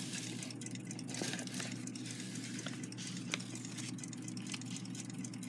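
Faint rustling of a paper parts envelope and light clicks of small clock parts in a cardboard box, with a few sharp ticks, over a steady low hum.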